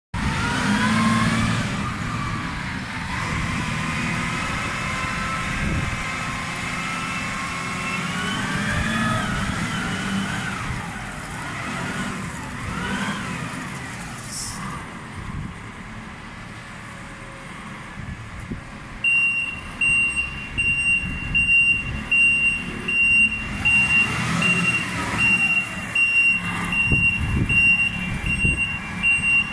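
FTMH FTF 33-12 heavy forklift's diesel engine running, its pitch rising and falling with a whine as it works. About two-thirds of the way through, its reversing alarm starts, beeping steadily a little faster than once a second.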